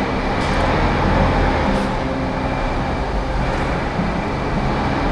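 Steady, loud running of a work vehicle's engine, with a rumbling low tone that shifts a little in pitch.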